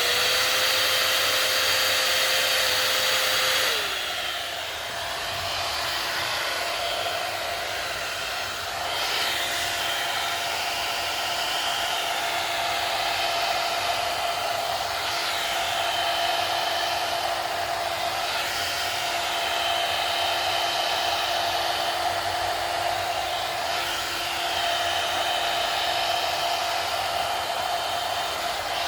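AGARO HV2179 1200-watt hot air brush (a one-step volumizer hair dryer brush) running steadily: a strong rush of air over a steady motor whine. About four seconds in, the whine drops in pitch and the airflow eases a little, then holds steady.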